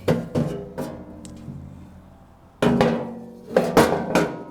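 Sheet-metal hood panel of a bulldozer clanking and knocking as it is handled and lifted off, with a few irregular hits that each ring on briefly.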